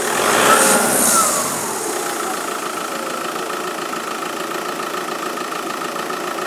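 Seat Altea car engine blipped once, its pitch rising and falling back within the first two seconds, then idling steadily with a constant high-pitched whine over the idle.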